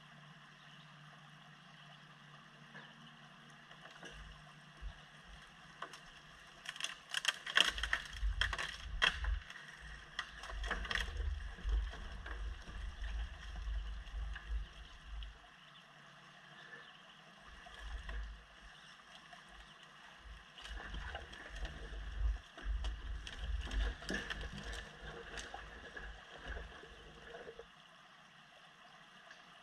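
A hemlock log dragged through a rocky creek bed, scraping, knocking on stones and splashing in two spells, the sharpest knocks about a quarter and three quarters of the way in. Under it the steady running of a Kubota diesel machine.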